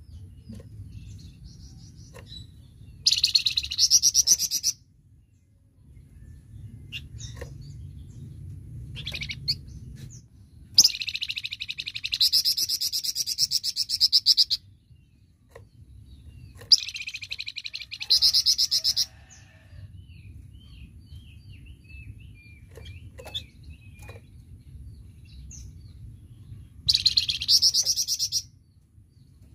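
A flamboyan songbird singing in loud, rapid-fire 'tembakan' bursts: four fast, high trills of a few seconds each, with soft chips between them over a low background hum.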